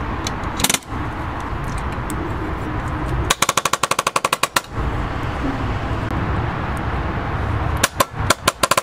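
Air-powered palm nailer rapidly hammering a nail through a perforated metal strap into hard lumber. There is a single strike about a second in, a fast run of blows for over a second near the middle, and a few separate strikes near the end, over a steady low noise.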